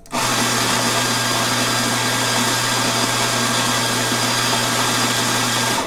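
Eureka Zenith 65E high-speed espresso grinder's motor and 65 mm flat steel burrs grinding a double dose of coffee beans into a portafilter: a steady whirring grind with a low motor hum that starts suddenly and cuts off after about six seconds.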